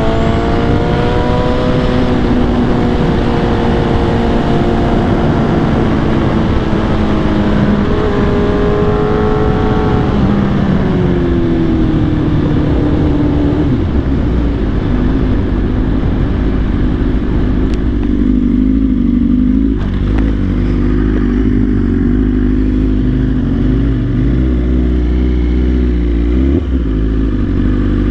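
Superbike engine heard from the rider's own bike, rising and falling in pitch through the gears with heavy wind rush. About halfway through it settles to a steadier, lower-revving run with a deep rumble.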